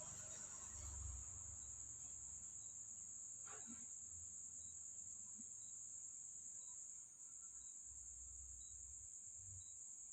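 Faint steady high-pitched trill of crickets, with soft ticks about once a second and one brief falling sweep about three and a half seconds in.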